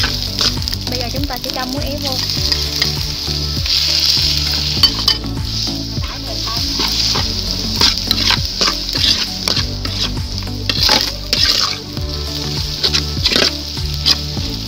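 Rice stir-frying in an aluminium wok: a steady sizzle, with a metal spoon scraping and knocking against the pan many times as the rice is turned.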